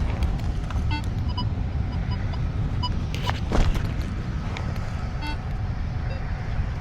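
Steady low rumble, with short high beeps from a Nokta Makro Legend metal detector now and then and a couple of sharp knocks a little past the middle.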